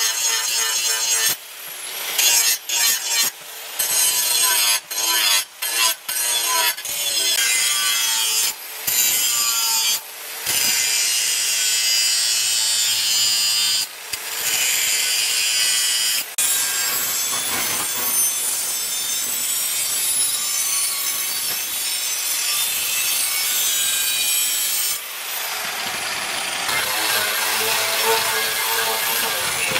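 Angle grinder cutting and grinding the steel of a tractor's plough disc, a harsh grinding noise. It stops and restarts briefly several times in the first ten seconds, then runs on without a break.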